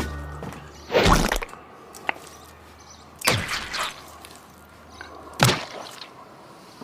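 Wet squelching thuds, three of them about two seconds apart, as salad is pushed by hand into a man's mouth.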